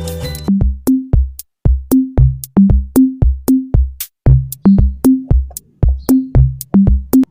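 Background music: a drum-machine beat of sharp hits with short pitched drum tones and a deep bass thump, about three a second, cutting off suddenly near the end.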